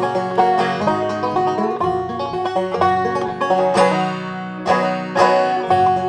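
Banjo fitted with a clear drum head, played in a quick picked, bluegrass-style tune; the playing thins briefly past the middle, then comes back with two hard-struck chords.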